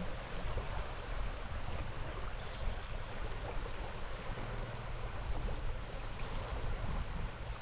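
Steady rushing outdoor noise of moving water and wind, with wind buffeting the microphone as a fluctuating low rumble.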